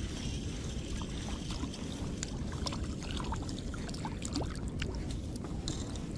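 Wind buffeting the microphone with a steady low rumble, over many small scattered ticks and drips of water around the inflatable packraft.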